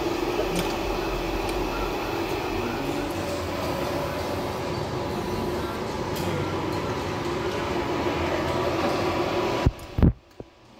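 Steady buzzing hiss of a TIG welding arc on DC at a 375-amp setting, with the welding machine and its water cooler running underneath. It cuts off suddenly near the end with a couple of sharp knocks.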